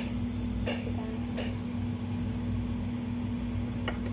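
A metal serving spoon scrapes and taps a few times in a pot of fried rice, over a steady low machine hum.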